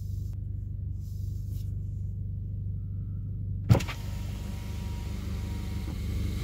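The 1.6-litre turbocharged four-cylinder of a Hyundai Elantra GT Sport runs steadily through an aFe axle-back exhaust, with only one exhaust tip fitted. A little past halfway there is a single sharp knock, and after it a wider rush of noise joins the engine.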